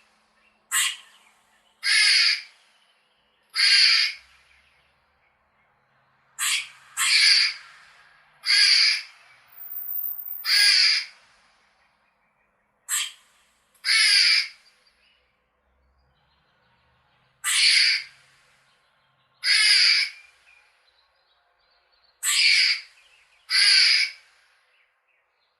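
Squirrel chirping: about a dozen short separate calls, spaced one to three seconds apart with quiet gaps between them.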